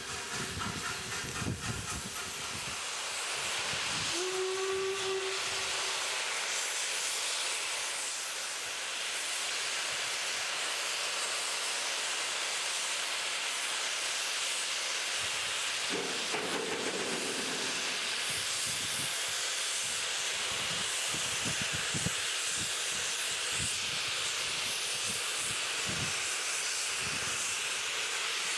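Steam hissing loudly from the front end of the Princess Coronation class steam locomotive 46233 Duchess of Sutherland, with a short whistle about four seconds in. From about halfway through, slow, uneven exhaust beats come in over the hiss as the locomotive starts away with its train.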